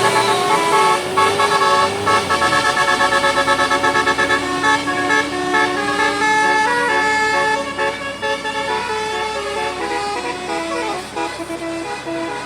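Indonesian telolet bus horn, a multi-note musical horn, playing a quick melody of stepped notes. A wavering tone comes first, then a fast run of short repeated notes, then the tune goes on a little quieter near the end.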